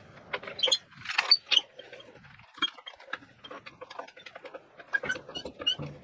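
Red Pittsburgh 3-ton hydraulic floor jack being slid under a car and pumped to lift it: irregular squeaks and clicks from the jack's moving parts.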